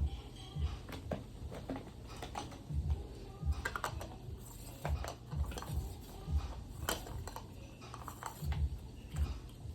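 Irregular clicks, clinks and light knocks of plastic and metal fan parts being handled and fitted as a Lasko table fan is reassembled.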